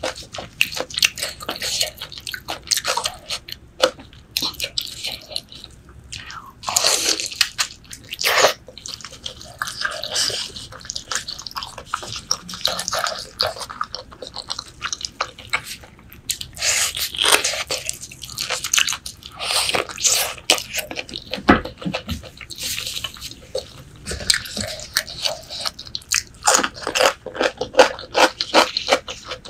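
Close-miked chewing and biting of braised pork leg: wet, sticky mouth sounds with many quick irregular clicks and smacks, and a few longer wet slurps.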